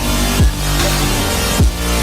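Electronic dance background music: a deep kick drum hits about every two-thirds of a second over sustained synth chords.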